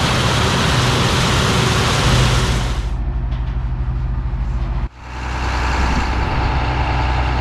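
Heavy diesel farm machinery running steadily in the field. A loud rushing hiss over the engine drops away about three seconds in, and a sudden cut about five seconds in leads to another machine's steady engine drone.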